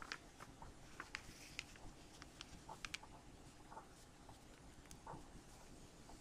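Faint rustling and scattered crisp ticks of a sheet of paper being folded and pressed flat by hand.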